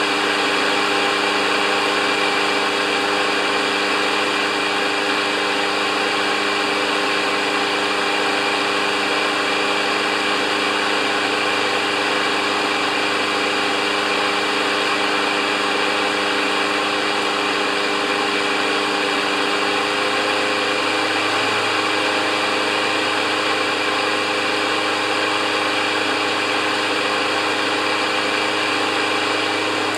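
Briggs & Stratton Quantum single-cylinder engine of a Craftsman push mower running steadily at a constant speed while its RPM is checked. The blade, which had been loose and knocking, is now tightened.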